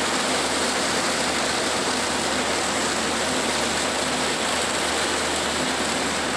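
Heavy rain pouring down on a bus driving along the highway: a loud, steady hiss of rain and water spray, with a low engine hum beneath it.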